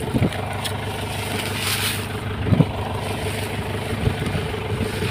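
Truck engine idling steadily, with a brief hiss about two seconds in.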